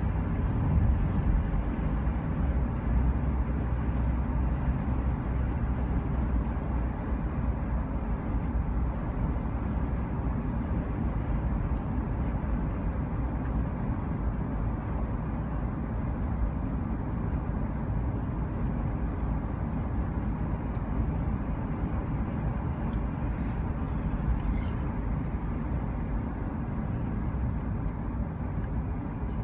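Steady low rumble of a vehicle driving, with even road and engine noise and no changes in pace.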